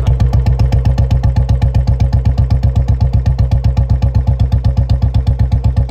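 Royal Enfield Bullet 350's single-cylinder four-stroke engine idling through its stock original silencer, heard at the tailpipe as a steady, even thump about seven beats a second.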